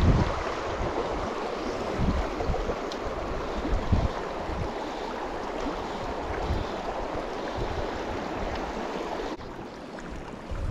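Small creek water running steadily, with gusts of wind buffeting the microphone in irregular low thumps. The water sound drops suddenly about nine seconds in.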